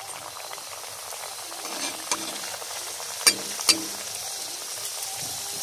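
A spring roll deep-frying in hot oil in a metal kadai, a steady sizzle. A little over three seconds in, two sharp taps of a utensil against the pan, about half a second apart.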